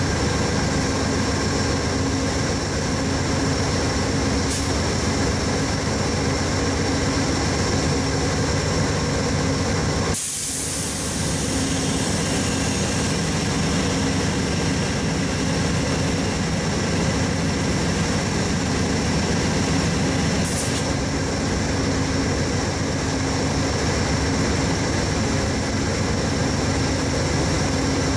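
GE P42 diesel locomotive running steadily while stopped at the platform. A burst of air hiss comes about ten seconds in and lasts about two seconds, with a shorter hiss about twenty seconds in.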